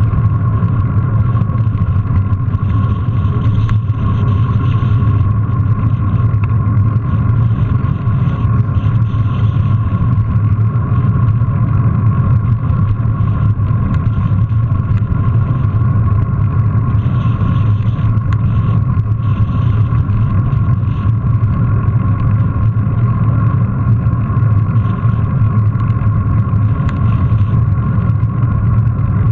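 Steady low rumble of wind and tyre noise on a bike-mounted GoPro as a mountain bike rolls over paving stones, with a steady faint hum above it.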